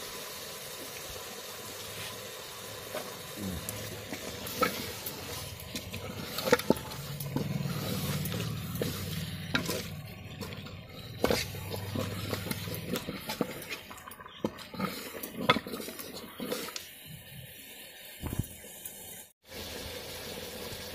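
Wooden spatula stirring and scraping pieces of meat in an aluminium cooking pot, with many sharp knocks against the pot, over a steady sizzling hiss of the meat cooking in its juices. The sound breaks off briefly near the end.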